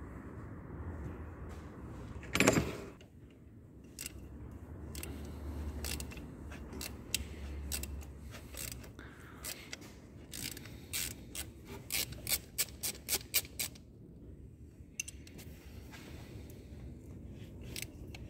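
Hand tools working on the injector hold-down bolts: a single loud clank about two and a half seconds in, then a run of sharp metallic clicks and clinks, with a quick series of about two to three clicks a second near the middle.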